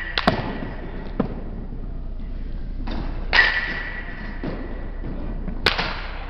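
A baseball bat hitting pitched balls: sharp cracks, one of them followed by a ringing tone lasting about a second. Lighter thuds come from balls landing in the cage. The sharpest crack comes near the end.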